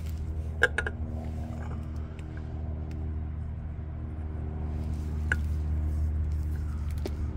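Steady low machine hum throughout, with a few light clicks and taps as a new oil filter is handled against the motorcycle engine's filter mount: two about a second in, one more past the middle and one near the end.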